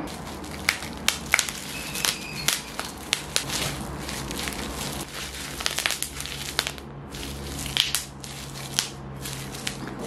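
Bubble wrap being twisted and squeezed in the hands, its bubbles popping in irregular sharp cracks amid plastic crinkling.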